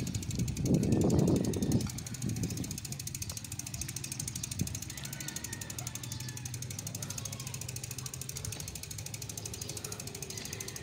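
Bicycle rear freewheel hub clicking in a fast, even ticking while the bike coasts, after a brief loud low rumble near the start.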